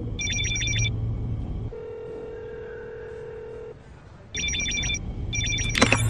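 Rapid electronic chirping ring of a computerized phone and call-tracing system. It breaks off for about two seconds of a steady, low telephone ringing tone heard over the line, then the chirping ring comes back, with a sharp louder sound near the end.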